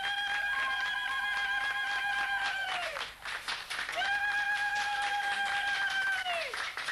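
Applause with clapping throughout. Over it rise two long, high ululation cries, each held on one pitch for two to three seconds and falling away at its end, with a short gap between them.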